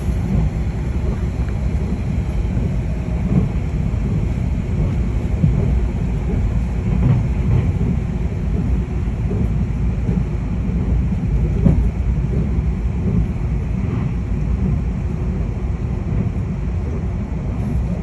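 Steady, loud low rumble of a vehicle travelling at speed, heard from inside it, with uneven low buffeting on the microphone.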